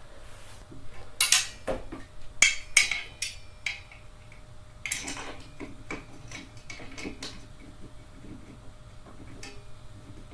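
Irregular clicks, knocks and short scrapes of gaming-chair parts being handled and fitted together by hand, loudest in the first three seconds and again about five seconds in.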